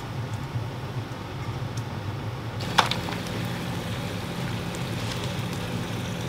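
Bacon frying in a cast iron skillet on a propane camp stove: a steady sizzle with scattered small pops over a low, even hum. A single sharp knock sounds a little under three seconds in, after which the sizzle is brighter.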